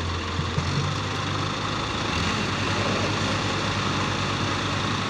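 Diesel engine of a hydra mobile crane running steadily with a low hum.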